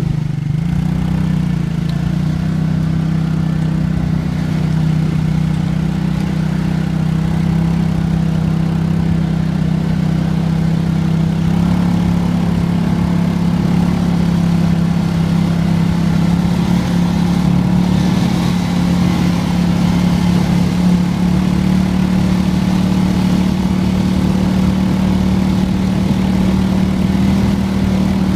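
ATV engine running steadily at a constant speed, its pitch stepping up slightly about twelve seconds in.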